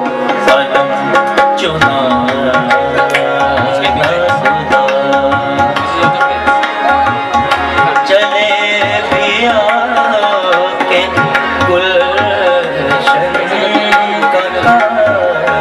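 Ghazal accompaniment: harmonium playing a sustained melody over acoustic guitar and a steady hand-drum rhythm.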